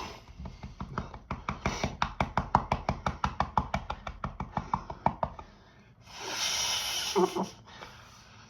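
Mountain Dew being chugged straight from the bottle: a rapid, even run of glugs, about eight a second, for some five seconds. It is followed by a breathy exhale with a short voiced sound at its end.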